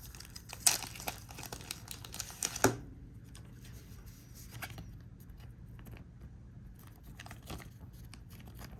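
Trading cards and thin plastic being handled: rustling and crinkling with a few sharp clicks in the first three seconds, as a card is slid into a sleeve, then quieter shuffling with scattered ticks.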